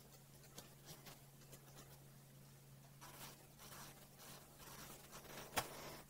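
Pencil sketching on paper: faint scratchy strokes that get busier about three seconds in, with one sharp click near the end, over a faint steady hum.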